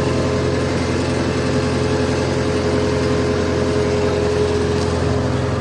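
JCB backhoe loader's diesel engine running steadily as the machine drives, heard from inside the cab with the door open.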